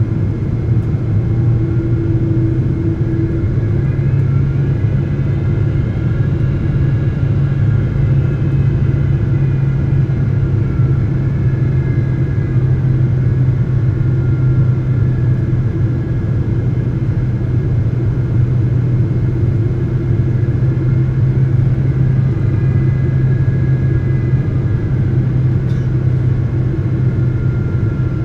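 Steady cabin noise inside a Boeing 777-200 airliner in flight: a low drone of the engines and rushing air, with faint whining tones that drift slightly in pitch.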